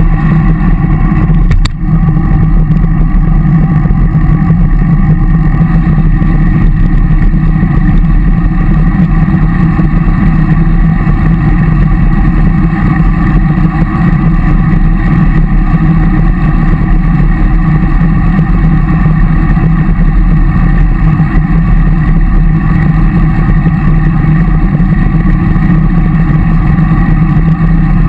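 Steady, loud rumble of wind and road noise on a bike-mounted action camera's microphone as the bicycle rolls along at speed.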